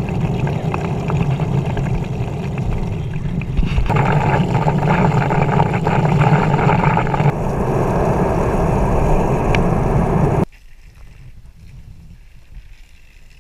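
Wind and water rushing over a GoPro's microphone, a loud steady noise that changes character twice, then drops suddenly to quiet outdoor background about ten seconds in.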